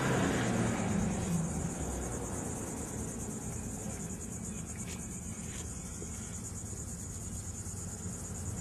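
Insects chirping in a steady, high, pulsing trill, with a low rumble fading out in the first second or so.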